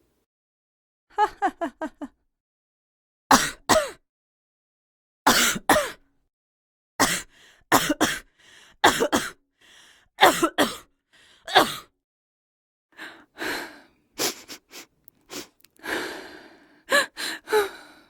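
A woman's short coughs and sneeze-like bursts, played as a series of separate sound-effect clips with dead silence between them. The first is a quick run of four small bursts about a second in, and the clips come closer together toward the end.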